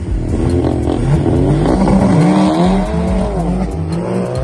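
Two cars launching off a drag-race start line. The engines rev hard and pull away, their pitch repeatedly climbing and dropping.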